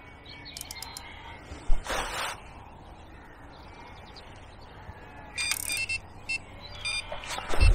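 Electronic bite alarm on a pike rod sounding a quick run of high beeps about five seconds in, as a fish takes the bait. A short rustling noise about two seconds in.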